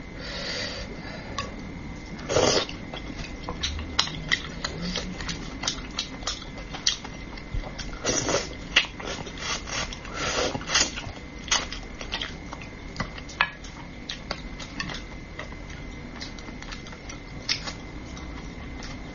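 Close-miked eating of spicy braised fish in sauce: a run of wet mouth clicks, lip smacks and chewing, with a few louder slurps spread through.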